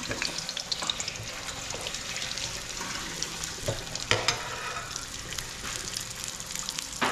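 Butter melting and sizzling in hot cooking oil in a wok, crackling steadily, while a metal ladle stirs and pushes it around the pan, with a sharper clack of the ladle about four seconds in.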